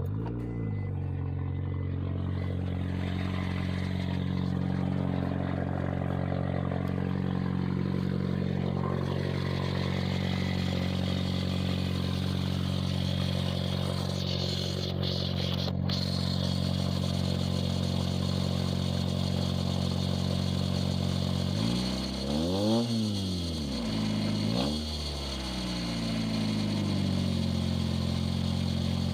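Honda Accord engine running with no exhaust system and no muffler, idling steadily. About three-quarters of the way through, the throttle is blipped twice, the pitch rising and falling each time before it settles back to idle.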